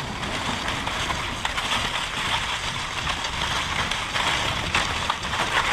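Dog sled running over a packed snow trail behind a husky team: a steady rushing, scraping hiss from the runners on the snow, with the dogs' pawsteps and a few light knocks from the sled.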